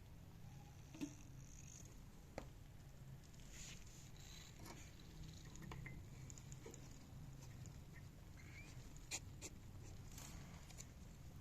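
Cockatiel making faint, scattered clicks and taps with a few brief soft chirps; the sharpest clicks come about a second in, near two and a half seconds, and again near nine seconds.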